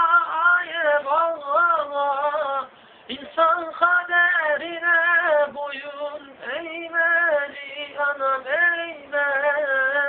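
A young man singing a Turkish folk song unaccompanied, in a high voice, with long held notes that bend and waver in pitch. There is a short breath pause about three seconds in.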